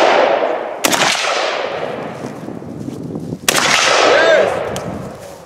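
Two shots from an AK-pattern rifle, about a second in and about three and a half seconds in, each trailing off in a long echo.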